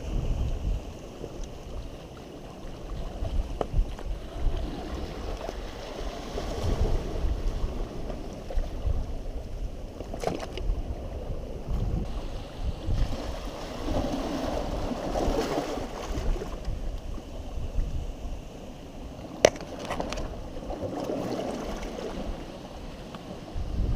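Ocean waves washing onto a beach, swelling and easing, with wind buffeting the microphone as a low rumble. A few sharp clicks are heard, one about halfway through and two close together later on.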